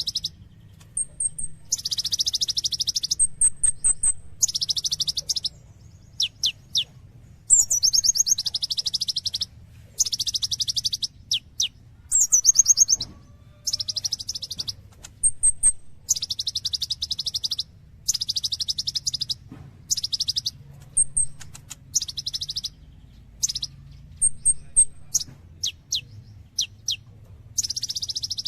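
Brown-throated sunbird (kolibri ninja) singing energetically. Its song is a string of rapid trills about a second long each, broken by short high chirps and quick falling whistles, over a faint low hum.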